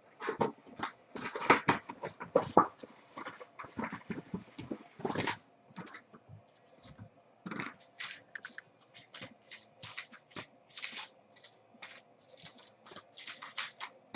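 Irregular crinkling, rustling and scratching of packaging being handled, as trading-card boxes and packs are torn open, with a faint steady hum underneath.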